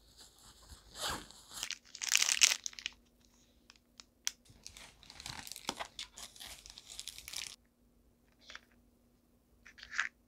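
Nylon fabric of a quilted puffer tote bag rustling and crinkling as hands pack items into it, with a snack-bar wrapper crinkling, a few small clicks and knocks, and two short, sharp rustles near the end.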